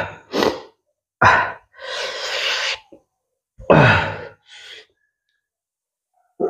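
A man's breathy sighs and exhales through the mouth: several short breaths, a longer breath out about two seconds in, and a voiced sigh with falling pitch near four seconds.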